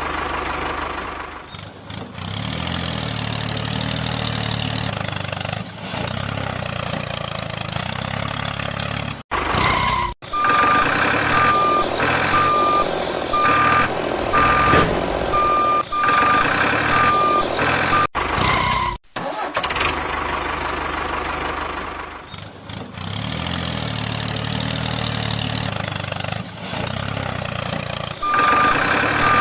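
Truck engine running steadily, then a reversing alarm beeping about once a second, then the engine alone again, with the beeping returning near the end. The sound breaks off abruptly twice, at the joins between sections.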